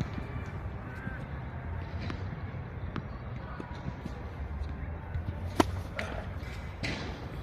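Tennis ball knocks, from racket strikes and bounces during play: a few sharp, separate impacts, the loudest about five and a half seconds in, over a steady low rumble of background noise.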